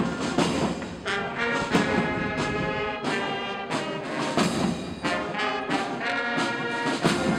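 Brass band playing: held brass chords, with drum strokes among them.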